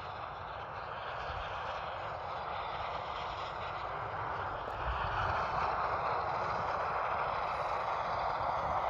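DRF rescue helicopter running on the ground before lift-off, its turbines and turning rotor making a steady rush that grows louder about five seconds in.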